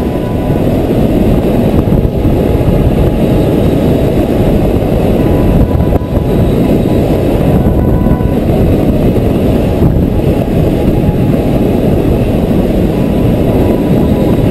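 Heavy wind buffeting on the microphone: a loud, steady low rumble with no pitch to it.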